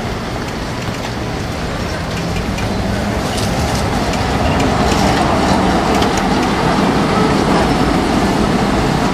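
Stockholms Spårvägar A31 'Mustang' tram no. 333 moving off and passing close by, its motors humming and its wheels clicking on the rails, growing louder as it nears.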